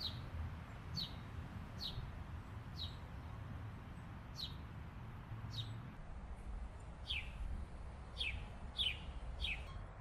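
A bird's short chirps, about ten of them spaced irregularly around a second apart, each sliding down in pitch, over a low rumble.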